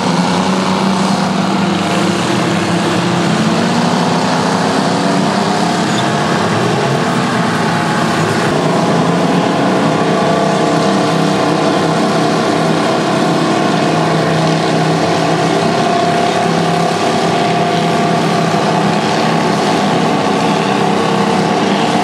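Vintage crawler bulldozers working, their twin Detroit Diesel engines running steadily under load, the pitch rising and falling several times as they rev.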